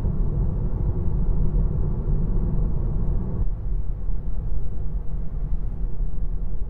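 In-cabin tyre road noise from a Tesla Model 3 on Michelin MXM4 tyres at 39 psi, a steady low rumble. About three and a half seconds in it changes from a rough road surface to a smooth one, and the upper part of the rumble drops clearly quieter: road noise from the rough surface, the part that differs by around 7.5 decibels between 50 and 1,000 hertz.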